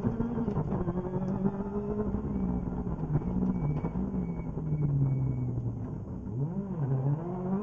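Ford Fiesta R5 rally car's turbocharged four-cylinder engine, heard from inside the cabin while driven hard on a stage. Its pitch sinks as the car slows about four to six seconds in, then swings quickly up and down before climbing again.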